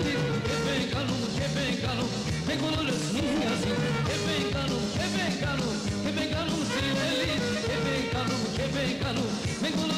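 Upbeat band music with a steady beat.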